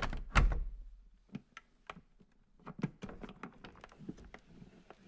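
Something vibrating and rattling against a wooden surface: a loud knock with a low thud about half a second in, then an irregular run of small taps and clicks on the wood.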